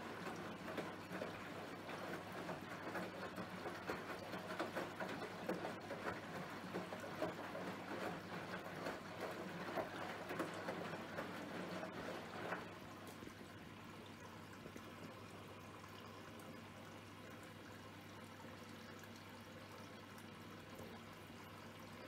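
Bosch Serie 4 VarioPerfect (WAN28280GB) washing machine in its rinse cycle: water splashing and running in the drum, stopping abruptly about halfway through and leaving only a low, steady machine hum.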